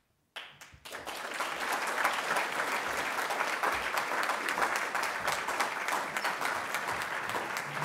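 Audience applauding: after a moment of near silence, many hands start clapping suddenly about half a second in and keep up a steady, dense applause.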